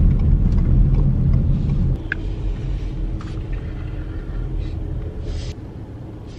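Low road and engine rumble inside a 2020 Ford Puma's cabin, dropping abruptly about two seconds in to a quieter low hum. A few knocks and rustles from the camera being handled follow near the end.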